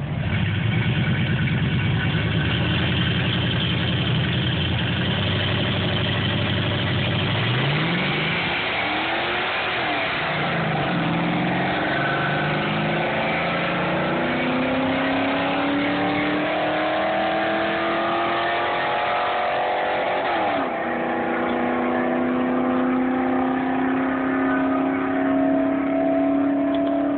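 A 2010 Subaru WRX's turbocharged flat-four with an SPT cat-back exhaust and a Pontiac Trans Am held at revs on the line. About seven seconds in they launch from a standstill and accelerate hard through the gears. The engine note climbs in each gear and falls back at the shifts, about ten and twenty seconds in.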